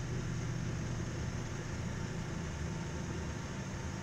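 Steady cockpit noise of a Hawker business jet climbing out just after takeoff with the gear up: an even rush of engine and airflow noise over a low, steady hum.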